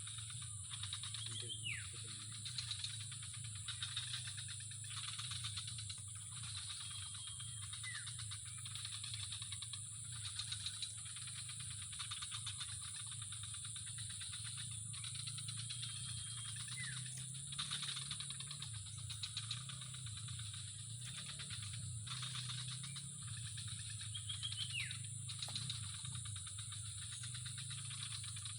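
Outdoor insect chorus: a steady high buzzing with fast pulsing chirps under it, over a low steady hum. A few short falling whistles, likely bird calls, come at intervals.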